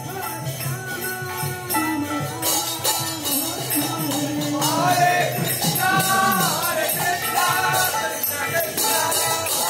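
Devotional kirtan music: voices singing a melody over jingling hand cymbals (kartals) that keep a quick steady beat and grow louder about two seconds in.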